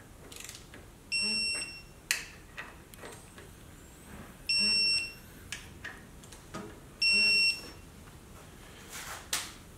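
Electronic torque wrench beeping three times, each a steady high-pitched beep of about half a second, as each air-cleaner standoff bolt reaches its set torque. Short clicks and taps of the wrench on the bolts come between the beeps.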